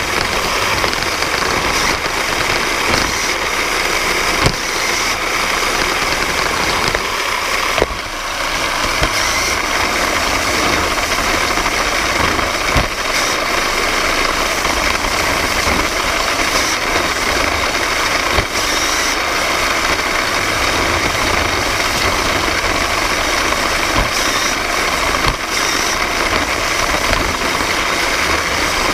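VEX competition robot's electric drive motors and gears running with a steady whir and rattle picked up by its onboard camera, with a few sharp knocks along the way.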